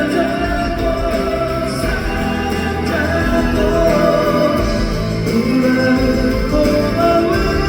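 Live music from a concert sound check: a ballad's band accompaniment with voices singing long held notes.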